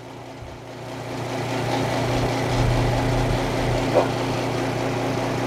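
Prototype low-speed belt-sander sharpening machine running with a steady motor hum, growing louder over the first two seconds, with a brief tick about four seconds in.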